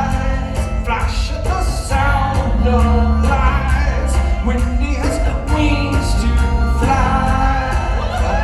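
A song performed live: voices singing over keyboard accompaniment with a steady bass and beat.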